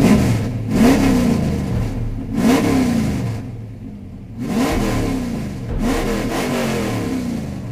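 Racing car engine revving several times, each rev a sharp rise in pitch followed by a slower fall.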